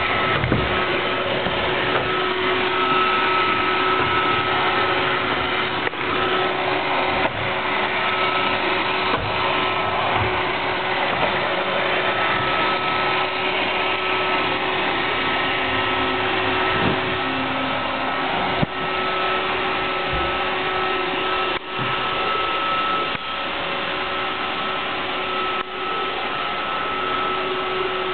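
An iRobot robot vacuum running, a steady whir of motor and brushes with a whine that comes and goes and a few brief sharp clicks now and then.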